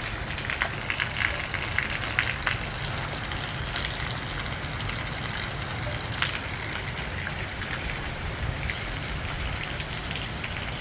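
Heavy downpour of rain in a steady hiss, with sharp drop impacts ticking on surfaces, thickest in the first few seconds.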